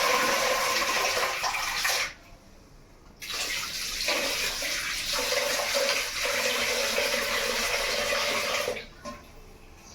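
Kitchen tap water running into a vessel as rice is rinsed. The water stops for about a second about two seconds in, then runs again and stops near the end.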